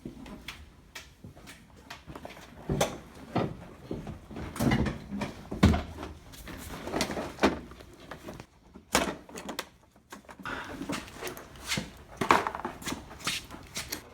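Irregular knocks, clunks and rattles of car parts being handled and pulled loose, the work of taking out a Honda S2000's soft top, with the loudest knocks in the middle and near the end.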